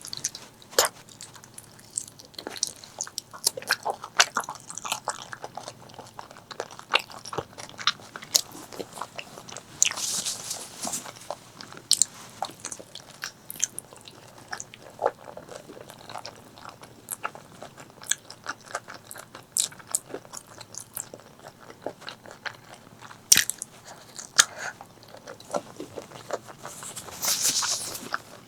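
Close-miked eating of spicy pork leg curry with rice: chewing and biting with many sharp wet mouth clicks. Two longer hissing sounds come about ten seconds in and near the end.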